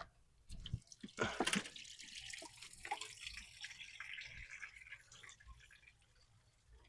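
A clatter of small metal clicks, then liquid trickling and splashing for a few seconds and tapering off: coolant running out of the mower's engine as the hose connection is worked loose.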